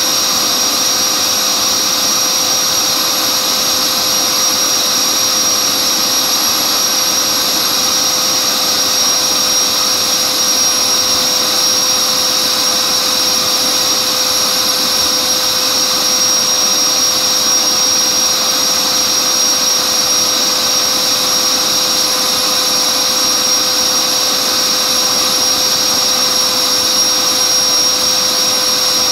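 Dynamax electric ducted fan, driven by a TP-5870 530kv brushless motor, running steadily at full power (about 30,700 rpm, drawing about 8 kW from an 18-cell lipo pack). It makes a loud, even rushing whine with a piercing high blade tone over it.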